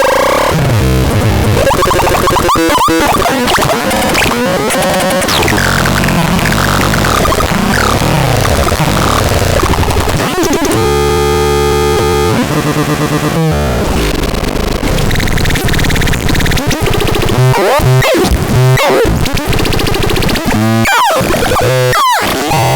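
KANTAZON synthesizer putting out a harsh, noisy wash of wavering electronic tones. About eleven seconds in it settles briefly into a steady buzzing chord, and it ends with a run of sweeping pitch glides.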